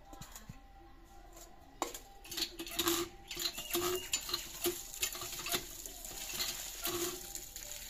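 Cast-iron hand pump being worked by its handle, starting about two seconds in: a rhythmic stroke roughly once a second, each with a knock and a short pitched creak from the handle, over water gushing from the spout and splashing onto the concrete and into a steel bowl.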